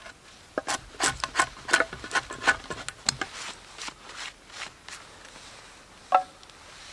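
Steel blade scraping the face of a split wooden plank, a rapid run of short scraping strokes for about three seconds, then a few sparser ones and a single sharp knock near the end.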